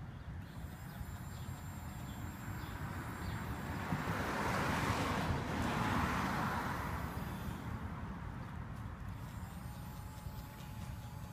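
A car passing on the street, its noise swelling to a peak about five seconds in and then fading away, over a low wind rumble on the microphone. Near the end a faint steady hum comes from the battery-powered bubble-blower toy as it puffs out bubbles.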